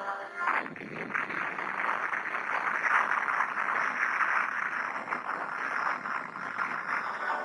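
Television explosion sound effect: a blast about half a second in that carries on as a long, dense, crackling rush of noise.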